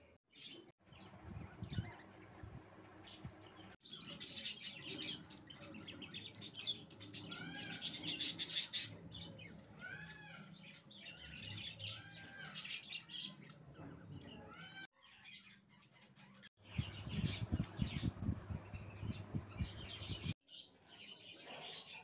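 Budgerigar chicks begging for food with squeaky, arching chirps repeated in quick runs as the hen feeds them. Near the end, a stretch of scuffling and rustling from the nest, with the sound broken by a few abrupt gaps.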